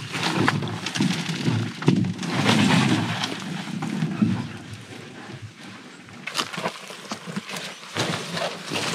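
Rustling and knocks as a canoe is hoisted onto a man's shoulders, followed by footsteps on dry leaves and twigs along a trail.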